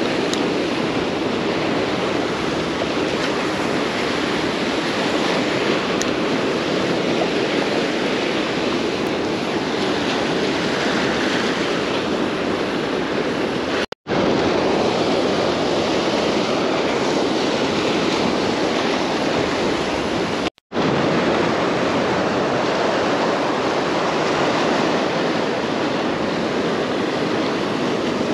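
Rough surf washing and breaking against the rocks of a jetty, a steady rushing noise with wind on the microphone. The sound drops out for a split second twice, about halfway through and again some seven seconds later.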